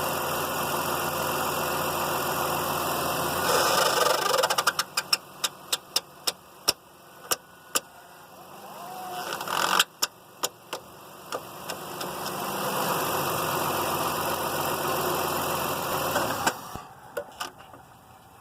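Car engine running, heard in the engine bay, with the weird noise the owner is chasing. Three times the running sound dies down, about four seconds in, near ten seconds and near the end, and each time comes a string of sharp clicks that slow down as it fades.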